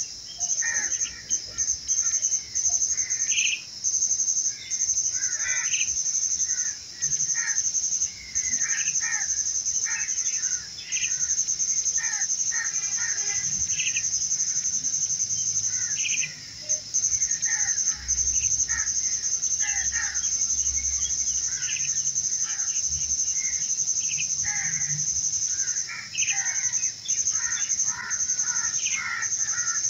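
A high, steady insect trill, broken by brief pauses every second or few, with many birds chirping in short calls throughout.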